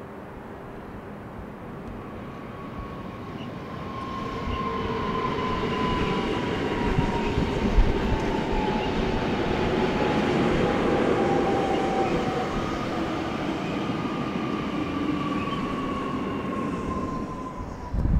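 Koleje Śląskie electric multiple unit running past: the rumble of its wheels on the rails swells over the first few seconds and stays strong. A steady whine slides slowly down in pitch as it goes by.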